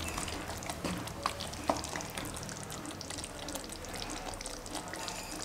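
Thick chicken curry sizzling and bubbling on the stove in a pan, with a couple of faint knocks from a wooden spoon about a second and a half in.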